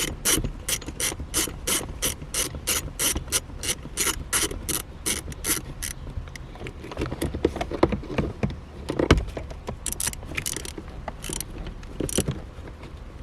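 Hand ratchet clicking as it tightens the shifter's mounting bolts: a quick, even run of about four clicks a second for the first six seconds or so, then slower, scattered clicks and a knock near nine seconds as the bolt nears tight.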